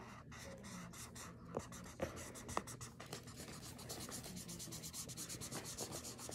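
Pink Sharpie marker scribbling on paper, colouring in with quick, even back-and-forth strokes that settle into a steady rhythm after about three seconds.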